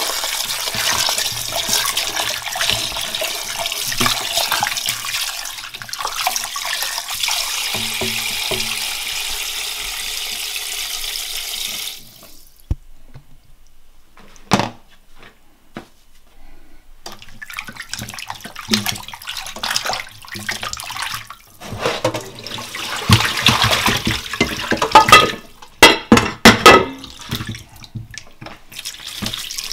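Kitchen tap running into a stainless steel pot of cut fish pieces in the sink, the water splashing over them; the tap shuts off suddenly about twelve seconds in. After a quieter stretch with a few clicks, water sloshes in the pot and a few loud knocks come near the end as the pot is handled and tipped.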